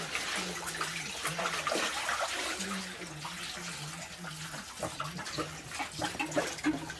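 Tap water running and splashing as something is washed under it.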